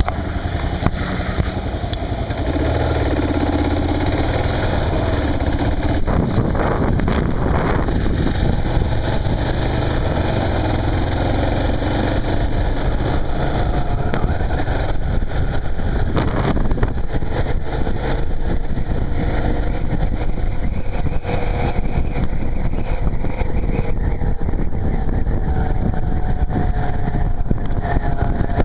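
Motorcycle engine running while riding along a road, its pitch drifting up and down with speed, over a steady rush of wind and road noise.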